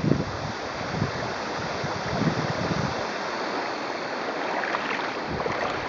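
Shallow river water running and rippling over stones, a steady even rush. Low puffs of wind on the microphone come and go in the first half.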